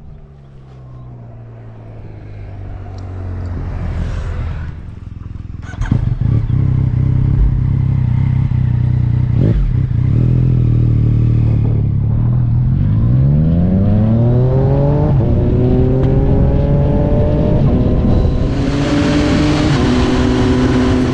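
Yamaha MT-09 motorcycle's inline-three engine running under way, holding a steady pitch, then rising in pitch as it accelerates about halfway through. Wind noise swells near the end.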